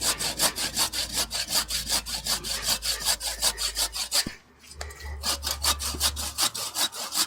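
Hand saw cutting through a tree branch in quick, regular rasping strokes, pausing briefly about four seconds in before sawing on.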